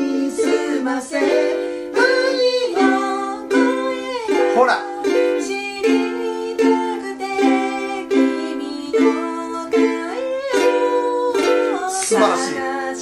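Ukulele strummed steadily through a chord progression (Am, Em7, Dm, G7, then C, G7, F, C), with a woman's voice singing along over the chords in places.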